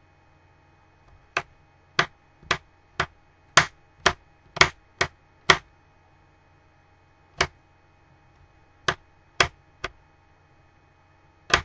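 Kitchen knife chopping celery on a metal pan used as a cutting board: sharp knocks of the blade on the pan, about two a second for a few seconds, then after a pause a few more, scattered.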